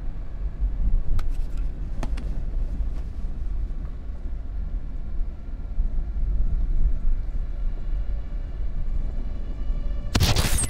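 Steady low rumble of a car being driven, heard from inside the cabin. A sudden loud burst comes near the end.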